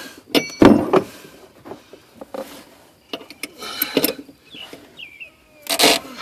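Hand tools (a wrench and pliers) clicking, knocking and scraping on the top nut of a rear shock absorber, with a couple of short squeaks. The nut is seized tight and the shock shaft is turning with it, so the shaft has to be held with pliers.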